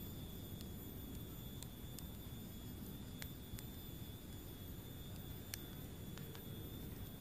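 Wood campfire crackling, with scattered single sharp pops from the burning sticks over a low steady rumble.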